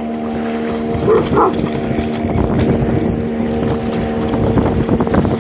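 A dog splashing as it swims out through a river and grabs a stick in its mouth, over a steady droning hum. The splashing is busiest in the second half.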